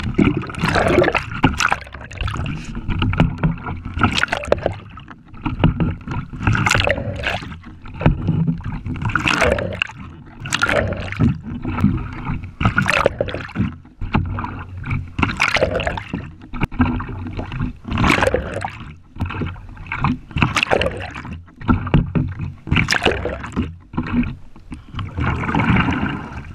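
Kayak paddle strokes heard from a camera mounted on the paddle: water splashing and gurgling as the blade dips in and pulls through. Loud, uneven surges come about every one and a half seconds, with sharp knocks between them.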